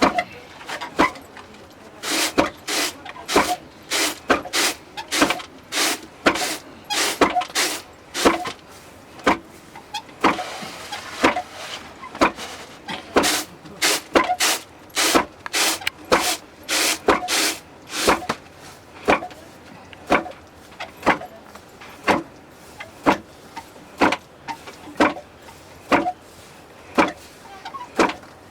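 Barley being pounded by hand with a wooden pestle: sharp, regular thuds about once or twice a second.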